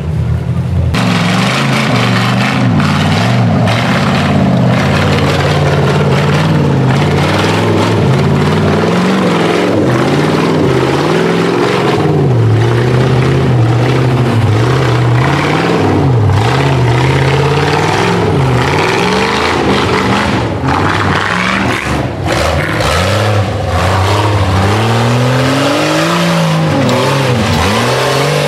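Rock buggy's engine revving hard and dropping back again and again, the pitch rising and falling every second or two, as the buggy claws its way up a steep, muddy gully under load.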